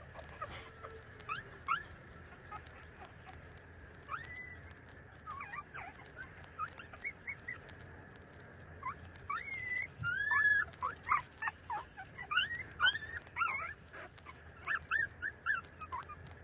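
Young puppies squeaking and whimpering while they nurse, in many short high-pitched squeaks. The squeaks come thick and fast a little past the middle.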